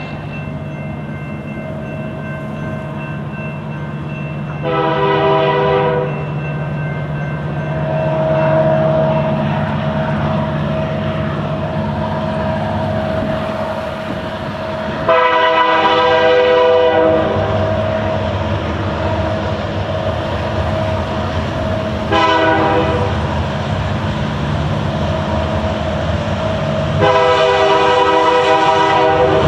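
Multi-chime air horn of a freight train's lead locomotive, a Union Pacific SD90MAC, blowing the grade-crossing signal: long, long, short, long, the last still sounding at the end. Under it runs the steady drone of the approaching diesel locomotives.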